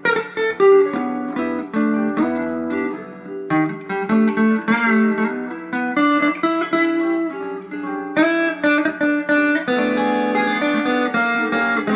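Fender Telecaster electric guitar played on its neck pickup through a tube amplifier: a lead line of picked single notes, a few of them bent or wavering in pitch.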